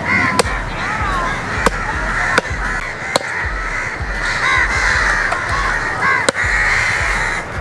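Crows cawing continuously, crossed by five sharp knocks of a large curved knife chopping stingray flesh on a wooden log block.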